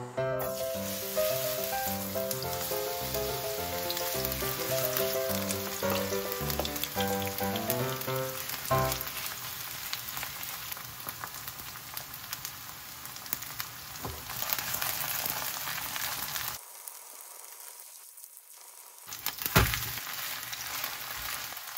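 Chive pancake batter frying in hot oil in a frying pan, a steady sizzle that drops out briefly about two-thirds of the way through and then resumes. Background music plays over the sizzle for the first several seconds.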